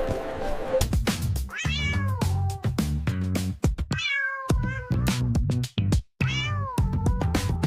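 Dance music with a steady beat and bass, with several cat meows cut into it about every two to three seconds.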